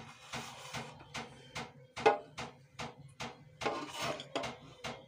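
Light knocks and clicks of a china plate being handled and tipped over a blender jar, with brief rustles of chopped coriander, green chillies and dried apricots sliding off, over a steady low hum.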